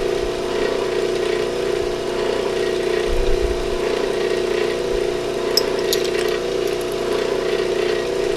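Electric motor of a shop machine, likely the polishing buffer, running steadily with an even hum, with a few faint light clicks about two-thirds of the way through.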